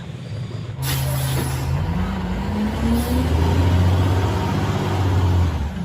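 Large truck engine running, starting abruptly about a second in; it revs up between about two and three seconds in, then runs on steadily.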